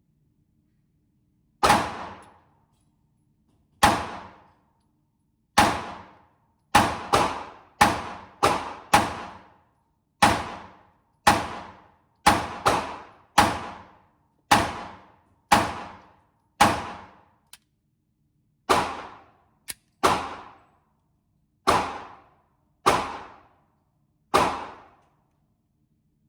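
Glock 26 9mm subcompact pistol fired about twenty times at an uneven pace, some shots in quick pairs and runs, each crack followed by a short echo off the indoor range walls.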